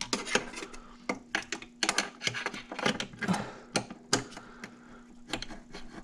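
Irregular clicks and clinks of hand tools and metal parts being handled in a car's engine bay, a few sharp taps a second with no steady rhythm, over a faint steady hum.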